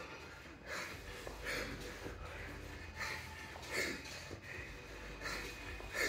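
A man breathing hard in a steady rhythm as he does one-arm kettlebell snatches: sharp, forceful breaths in pairs about three-quarters of a second apart, one pair every two seconds or so, timed to the reps. This is the laboured breathing of the late stage of a long high-rep set.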